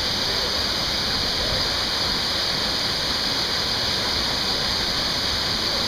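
Steady rush of flowing water, an even hiss that is strongest in the high range and never lets up.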